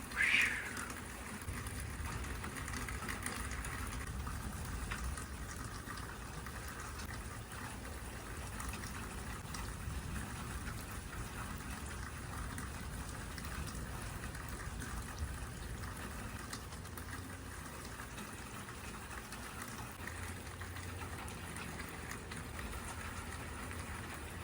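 Thunderstorm rain falling steadily, with a low rumble underneath. A brief high-pitched sound, falling in pitch, stands out just after the start.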